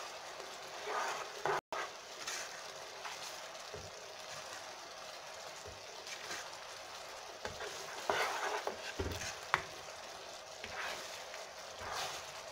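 Sesame-seed and chili-sauce sugar glaze bubbling and sizzling in a non-stick pan as it reduces and thickens, with a spoon stirring and scraping through it every few seconds and one sharp tick against the pan.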